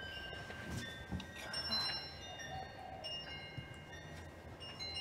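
Wind chimes tinkling faintly, many high ringing notes overlapping and fading.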